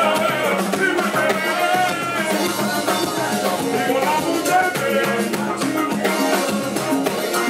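Live Cuban reggaeton band playing, with congas and drum kit keeping a steady beat under a lead vocal.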